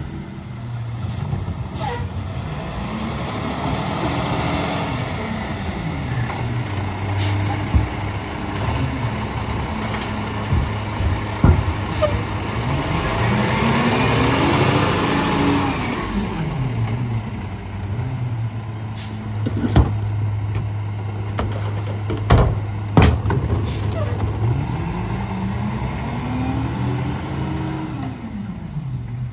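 International garbage truck with a McNeilus rear-loader body: the diesel engine idles and revs up and back down three times, each rise lasting a few seconds. Sharp bangs of recycling bins being emptied into the hopper come several times.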